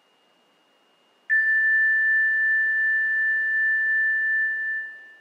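A single high, pure chime tone that sounds suddenly about a second in, rings steadily and fades away near the end: a meditation chime marking the end of the silent sitting.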